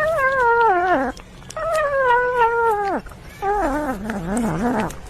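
A cat yowling: three long drawn-out wavering calls, each sliding down in pitch, the last one lower and more warbling.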